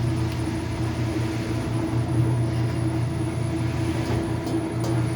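Washing machine running with a steady electric hum, a strong low tone and a fainter higher one, that started abruptly when the cycle was switched on. It is a washer that will not spin; the tub stays in the same spot.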